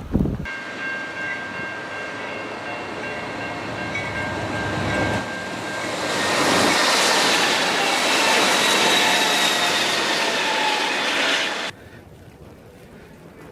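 A train passing. Several steady high tones sound for the first few seconds, then a louder rushing noise builds from about six seconds in. Both are cut off abruptly near the end.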